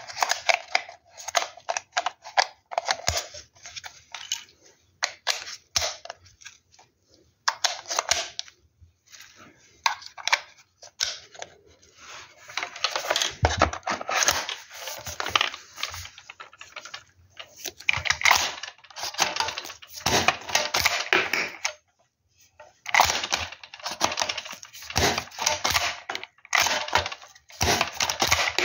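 Plastic clicks and rattles of shells being pressed into a toy Lee-Enfield No.1 Mk III rifle's plastic magazine, the magazine snapping into the rifle, and the bolt being handled near the end, with rustling of disposable gloves throughout.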